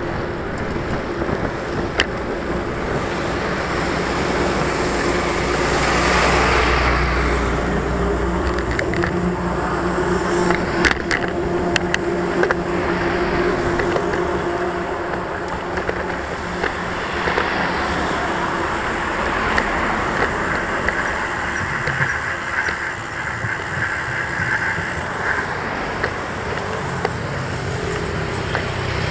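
Steady rolling road noise from a moving bicycle, with motor traffic passing alongside; one vehicle passes loudest about six seconds in. A few sharp knocks come now and then, most around eleven to twelve seconds.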